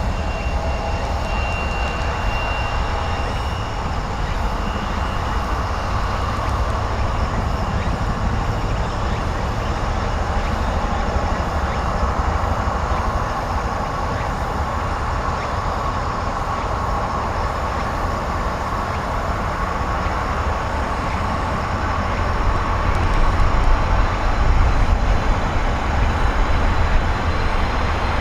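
Jet engines of a Boeing 767-300 airliner on landing approach: a steady rumble with a thin steady whine, growing louder over the last few seconds.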